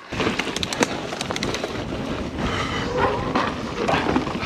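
Scor 4060 ST mountain bike rolling fast down a rough dirt and rock trail: tyres crunching over loose ground, with quick rattles and knocks from the bike over the bumps, densest in the first two seconds, and wind on the microphone.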